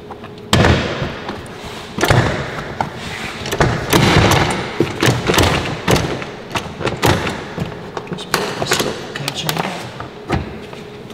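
Plastic clips of a Tesla Model 3 frunk surround being pulled loose by hand: a string of sharp pops and knocks, with stretches of plastic scraping between them.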